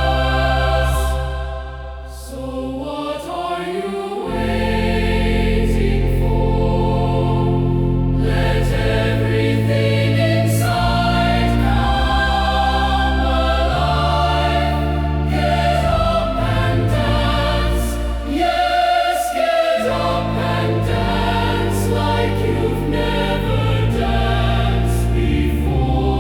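Choir singing slow, sustained chords in harmony over deep held bass notes, the chords changing every couple of seconds, with a brief softer passage a few seconds in.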